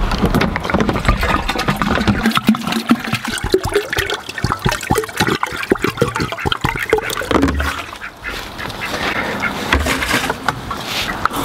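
Water pouring out of an upturned 5-gallon plastic water jug into a plastic bucket, glugging irregularly through the jug's neck, with ducks quacking.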